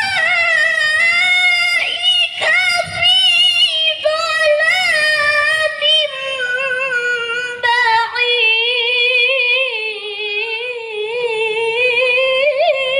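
A woman's high voice reciting the Quran in melodic tilawah style, drawing out long ornamented notes that waver and bend in pitch, with a few short breaks for breath.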